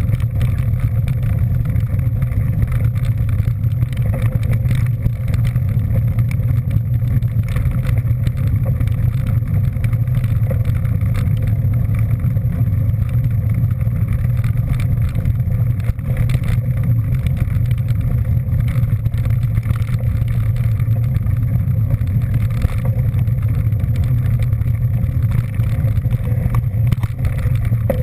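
Steady low drone of a vehicle under way, engine and road or wind noise at an even, unchanging pace.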